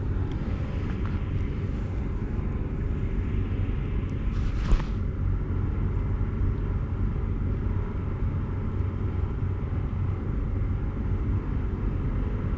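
Wind rumbling on the camera microphone, a steady low rumble that flickers in level, with one short rattle about four and a half seconds in.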